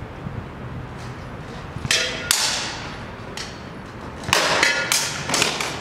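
Sparring sabres clashing against each other and against bucklers: two sharp strikes about two seconds in, then a quick flurry of about five near the end, each with a brief ring, over low wind rumble on the microphone.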